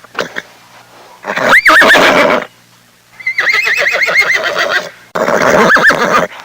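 Horse whinnying three times, about a second in, around three seconds in and again near the end; the middle whinny is a long quavering one.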